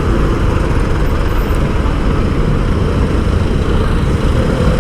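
Steady, loud rumble of a moving vehicle on a city road: engine and road noise with heavy low wind buffeting on the microphone.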